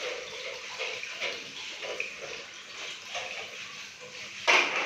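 Water running with a steady hiss, over small plastic clicks and knocks as a toilet cistern fill valve is handled. A short, louder burst of noise comes near the end.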